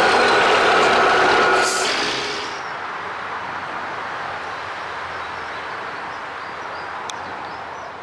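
A wheeled log loader's engine and hydraulics run loudly with a steady whine, and a short hiss comes just under two seconds in. The sound then falls away to a quieter, steady machinery noise.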